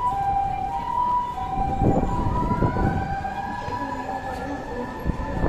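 Emergency-vehicle siren on a busy street: a two-tone hi-lo alternation typical of a Japanese ambulance for the first two seconds, then about two seconds in a siren tone rises in pitch and holds as a steady wail. Traffic and footstep noise run underneath.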